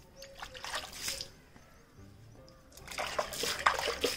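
Water splashing and sloshing in two bursts, one near the start and a longer one near the end, with faint background music underneath.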